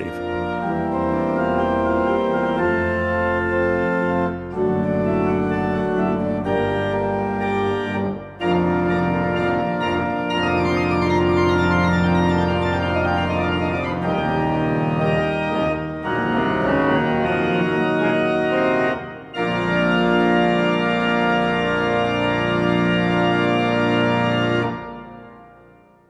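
Pipe organ playing sustained full chords in phrases, with short breaks between them. Near the end the last chord stops and dies away over a couple of seconds.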